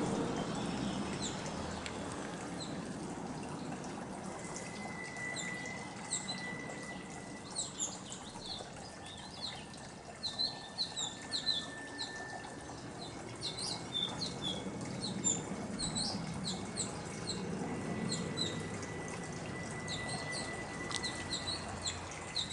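Small birds chirping in many short, quick calls that grow more frequent about a quarter of the way in, over a steady hiss. A faint, thin, steady high tone comes and goes twice.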